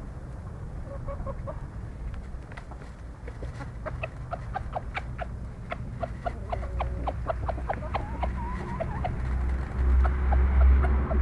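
Bantam golden Italian (Leghorn) chickens, hens and a rooster, clucking in short, quick notes, thickest in the middle. A low rumble grows loud near the end.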